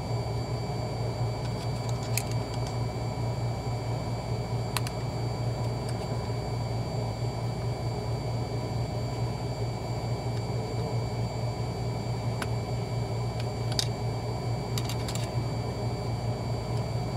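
Steady low machine hum, like a shop fan or similar running appliance, with a few faint sharp clicks scattered through it.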